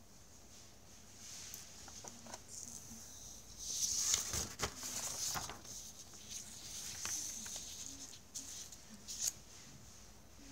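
Sheets of paper being handled and slid across a desk: rustling and crinkling, loudest about four to five seconds in, with a few light clicks and taps.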